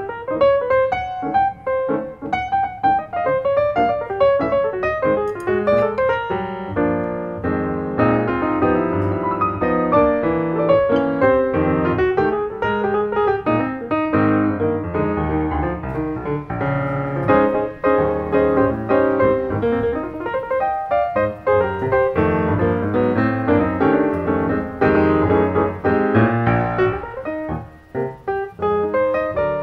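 Background piano music: a steady flow of notes.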